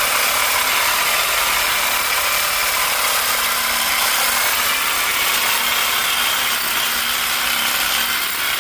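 Copper water pipe being cut at a sweated hose bibb, a loud, steady mechanical noise that runs without pauses.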